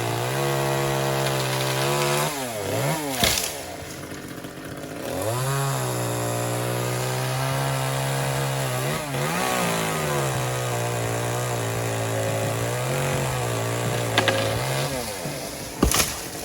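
DeWalt cordless chainsaw running with a steady electric whine. Its pitch sags a few times under load, and it drops off about three seconds in before spinning back up. There are a couple of sharp cracks, one near the start and one near the end.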